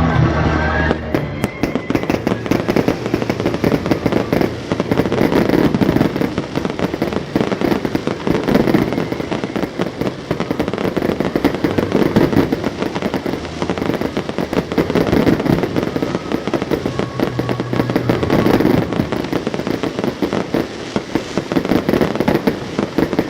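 A dense, continuous barrage of aerial firework shells bursting and crackling, the bangs following one another rapidly. Music is heard clearly for about the first second, then lies faintly under the bursts.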